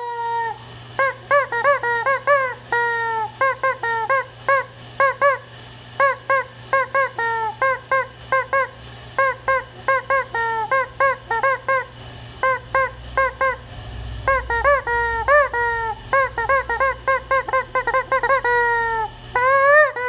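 Yellow rubber screaming-chicken toy squeezed over and over, giving a quick series of short squawks that each rise and fall in pitch, with a few longer drawn-out squawks near the end.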